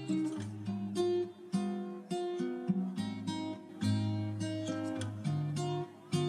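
Background music on acoustic guitar: a run of plucked and strummed notes, a new note or chord about every half second.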